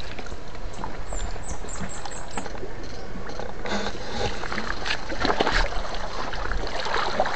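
Shallow water sloshing and splashing, with scattered short splashes over a steady wash of noise.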